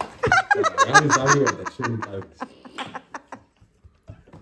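People laughing, dying away after about two and a half seconds, with a few light clicks and then a brief hush.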